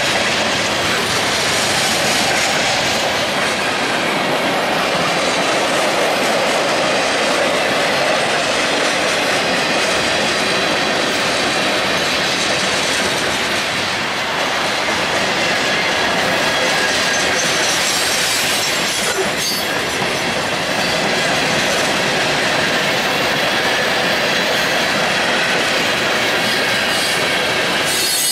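Manifest freight train rolling past at close range: a steady, loud noise of steel wheels running on the rails as boxcars, tank cars and covered hoppers go by.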